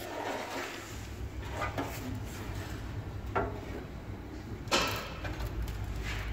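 A few short knocks and scrapes of a loose sheet-metal car body panel being handled on a concrete floor, the loudest clank a little before the end, over a low steady hum.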